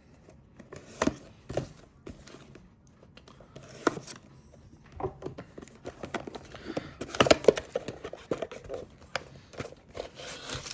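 A cardboard box and its packaging being opened by hand: scattered taps and clicks with crinkling and tearing. The handling is busiest about seven seconds in.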